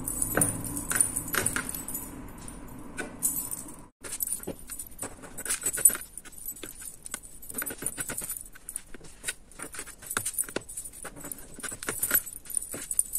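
Handling noise of cotton macramé cord being pulled and knotted by hand on a board: light rustling with many small scattered clicks and taps. The sound drops out briefly about four seconds in.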